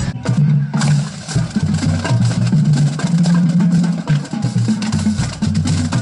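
Music with a bass line that steps between notes and crisp, regular percussion hits, starting just under a second in after a short break.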